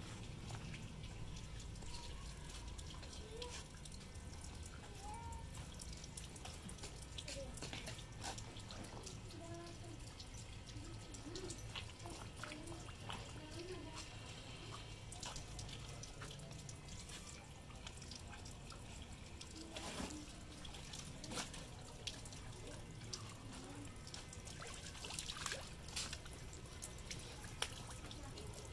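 Water splashing and dripping as clothes are hand-washed: garments rinsed and shaken over a plastic tub of water and scrubbed on a wet concrete floor, with many scattered short splashes.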